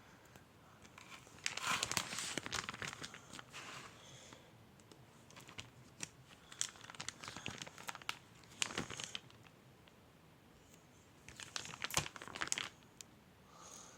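Crinkling and rustling of something being handled, in three bouts of crackly noise.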